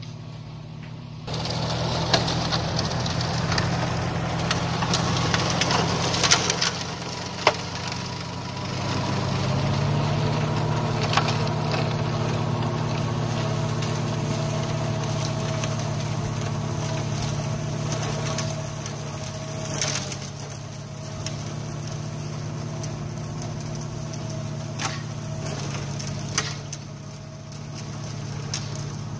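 New Holland TCE 50 tractor's diesel engine running steadily under load while its Agricom flail mower shreds weeds, with sharp cracks now and then as the flails strike sticks and debris. The sound gets suddenly louder about a second in.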